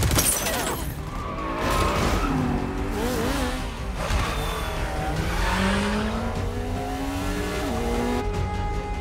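Film soundtrack of motorcycle and car engines revving, with tires screeching, mixed over a music score. Held music tones take over near the end.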